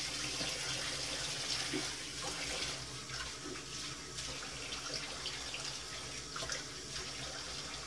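Bathroom sink tap running steadily while water is splashed onto a face to wet it before shaving.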